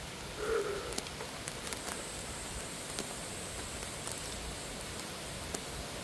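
Footsteps crunching and rustling through leaf litter and low undergrowth, with scattered small twig snaps over a steady background hiss. A faint, steady high-pitched tone sits in the middle of it for a few seconds.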